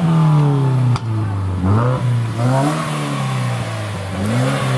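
A Subaru's engine being revved several times in short blips, each rev climbing and dropping back to idle. A sharp click comes about a second in.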